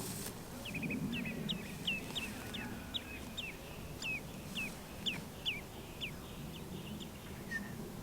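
A wild bird calling a string of short, clear whistles, each sliding sharply downward, about two a second for some five seconds before stopping.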